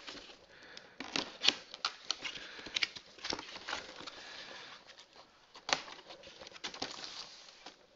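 Cardboard toy packaging being cut open with scissors and handled: irregular sharp clicks, snips and scrapes, with rustling of the cardboard flaps.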